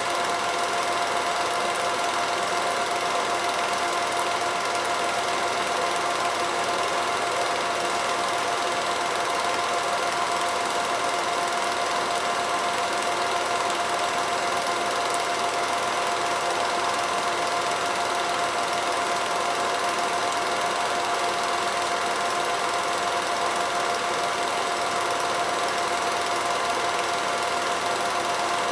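Film projector running, a steady mechanical whirr with a constant tone that does not change with the picture.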